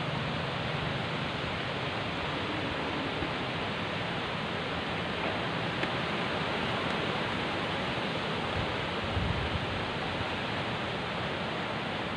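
Steady, even hiss with no change in level, and a soft low thump about nine seconds in.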